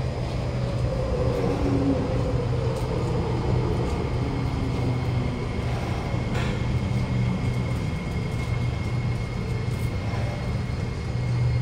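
Kawasaki Nippon Sharyo C751B metro train pulling into an underground platform behind screen doors. Its motor tones fall in pitch as it brakes, over a steady low hum. A thin steady high tone comes in about halfway, and there is a single short click about six seconds in.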